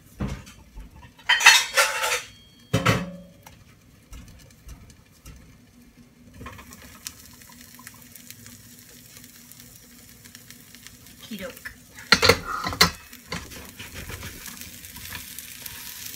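Stainless steel pan lids and cookware clattering in two bursts, near the start and about three-quarters through, as the lid comes off the frying pan and is set down on a saucepan. Between them an omelette sizzles in the uncovered nonstick pan, the sizzle growing louder near the end as a spatula works under it.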